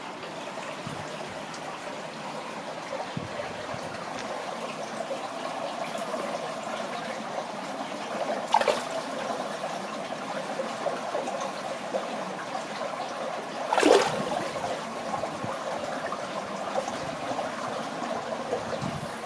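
Water running and trickling along a village water channel, a steady gurgling flow with two brief louder splashes, about eight and fourteen seconds in.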